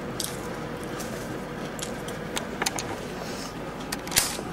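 Handling noise from the camera being picked up and moved: scattered small clicks and rubbing over a steady background hiss, with a sharper knock about four seconds in.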